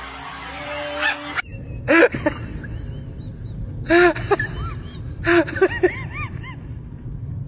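An animal calling in short, pitched, arching calls: one about two seconds in, another at four seconds, then three in quick succession, over a low rumbling background.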